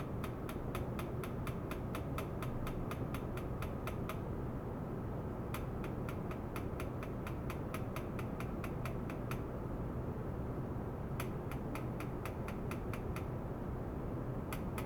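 Ultrasonic cleaning tank being driven: a steady low hum and water-noise, with runs of sharp regular clicks at about five a second that start and stop several times.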